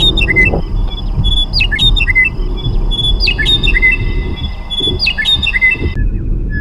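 A songbird singing the same short, whistled phrase over and over, about every second and a half to two seconds, over a loud low rushing noise.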